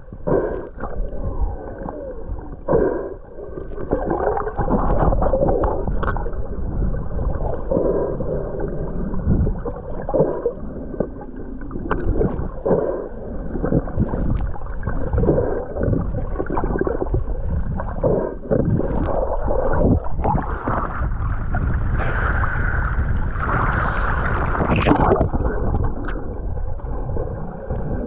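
Humpback whale song heard underwater: a long series of moans and calls that glide up and down in pitch, with the highest, loudest rising calls near the end, over a low wash of water and bubble noise.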